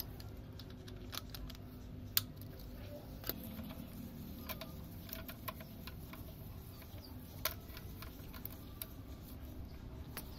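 Scattered light metallic clicks and taps of a socket and extension bar working bolts inside an old diesel engine's crankcase, irregular and a second or more apart, over a faint low hum.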